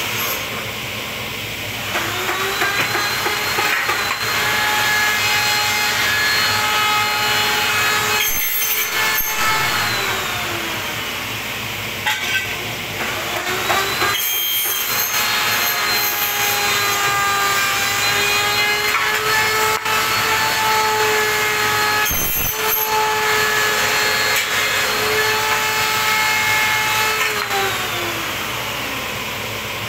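A pneumatically clamped cut-off saw cutting aluminium profile. It makes two long cuts, each a whine that rises in pitch, holds steady and falls away at the end. A few short sharp hissing bursts come in between.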